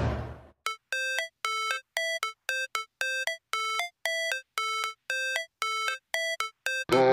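Background music: a simple electronic melody of short beeping notes, about two a second, alternating between two low pitches. A fuller piece of music comes in near the end.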